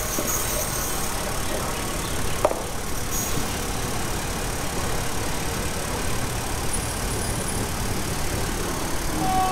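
Steady diesel engine noise as an SRT THN/NKF-class diesel railcar rolls slowly along the main line toward the camera, with one sharp click about two and a half seconds in.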